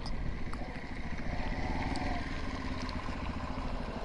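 Motorcycle engine running steadily as the bike rides along the road.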